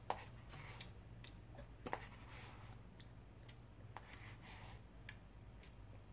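Faint, scattered clicks and light scrapes of a metal spoon against an ice cream cup and teeth while eating, about ten clicks in all, the loudest about two seconds in.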